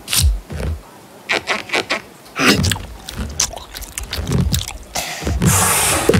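Cartoon sound effects for an animated character: a string of short clicks, pops and mouth-like noises, then a hissing rush that builds for about a second near the end as a bubble swells.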